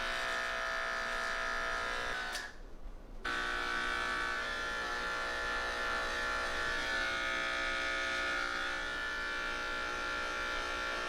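Electric pet grooming clippers buzzing steadily. They cut out briefly about two and a half seconds in, then run on.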